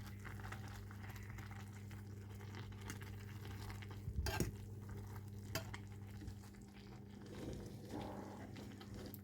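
Faint kitchen sounds: a few light clinks of utensils or dishes over a steady electrical hum.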